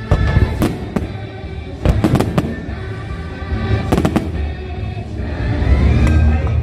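Fireworks display bursting overhead: sharp bangs just after the start, a cluster about two seconds in and another about four seconds in, over the show's loud musical soundtrack, which swells near the end.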